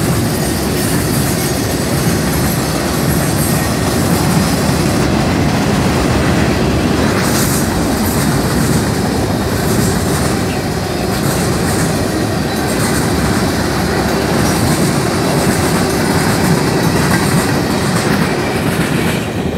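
Freight train cars rolling past at a grade crossing, steel wheels rumbling and clattering steadily on the rails. The last cars go by near the end.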